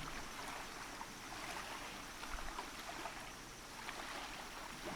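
Faint, steady sound of calm bay water lapping, with small light splashes here and there.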